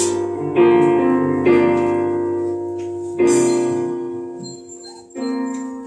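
Piano playing slow, sustained chords, a new chord struck every second or two and left to fade: the introduction to a worship song.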